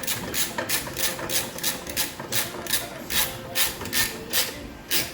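Hand ratchet clicking in quick back-and-forth strokes, about three to four a second, tightening down the bolts of an air-ride compressor bracket; the strokes stop near the end.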